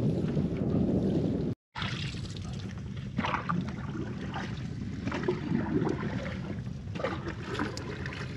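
Wind and water noise around a small fishing boat on the water. The sound briefly cuts out, then turns to a quieter water trickle with scattered small knocks.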